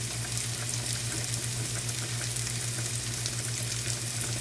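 Yak ribeye steaks sizzling steadily on an electric indoor grill, a constant crackling hiss with fine pops, over a steady low hum.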